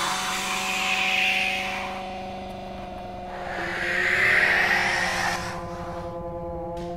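A cat hissing twice, each hiss lasting over a second, the second one louder, over a steady low droning chord of several held tones.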